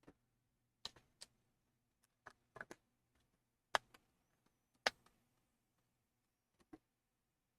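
Light clicks and taps of a MacBook Pro's internal board and parts being handled and eased out of the laptop chassis: about nine scattered clicks, the two loudest a little past the middle.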